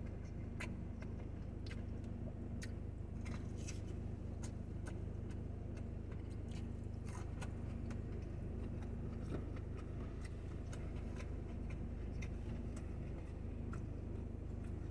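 Close-up chewing of a fried chicken tender: faint, irregular wet mouth clicks over a steady low background hum.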